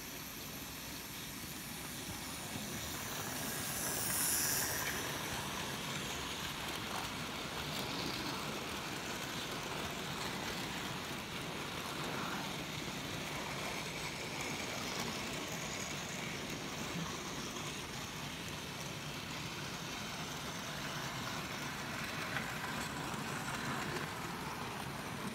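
Hornby OO gauge model of a BR 38xx steam locomotive hauling a long goods train past on sectional track: the steady whirr of its small electric motor and the rattle of the wagons' wheels running over the rails. It is loudest about four seconds in as the locomotive passes close, then the wagons keep rolling by steadily, with a few light clicks near the end.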